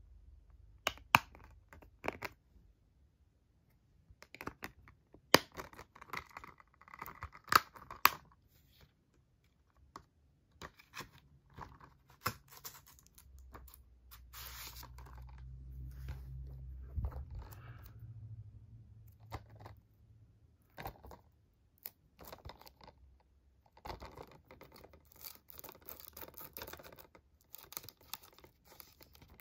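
Hard plastic Blu-ray cases being handled: a scatter of sharp clicks and snaps from the cases and the disc hub, with crinkling and tearing of plastic shrink wrap near the end.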